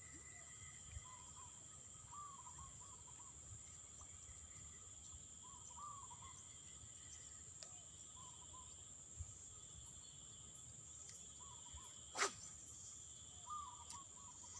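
Faint outdoor nature ambience: a steady high-pitched insect drone, with an animal's short chirping call repeated every couple of seconds. A single sharp click about twelve seconds in.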